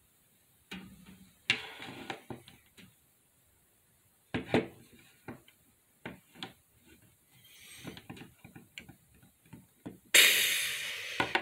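Plastic toy walrus and polar bear figures knocking, tapping and scuffing against a wooden tabletop in a mock fight, as an irregular run of knocks. Near the end a loud rushing noise lasts about a second.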